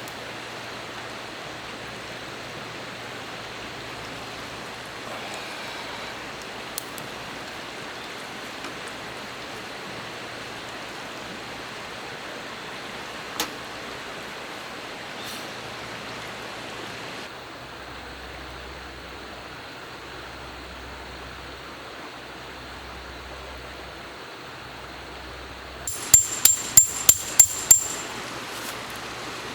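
Steady hiss of outdoor background noise, then near the end a quick run of about eight sharp metallic strikes, each with a short high ring.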